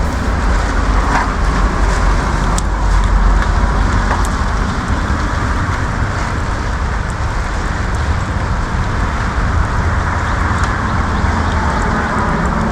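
Stump grinder running steadily, its cutting wheel grinding into an oak stump: a loud, continuous engine drone and grinding with scattered sharp ticks.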